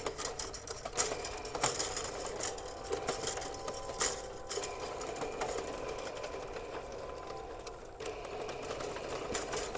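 Electric drum drain snake (sewer auger) running in forward, its motor humming steadily as the spinning cable is fed out, with scattered clicks and knocks.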